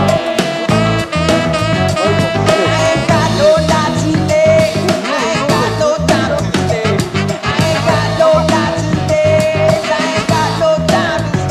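Background music: an upbeat song with a steady beat and a sung melody.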